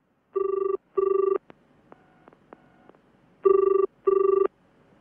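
Telephone ringing in a double-ring pattern: two pairs of short steady rings about three seconds apart.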